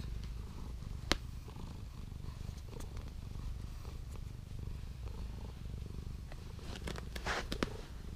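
Domestic cat purring steadily while being stroked, with a single sharp click about a second in and a rustle of the hand against the fur near the end.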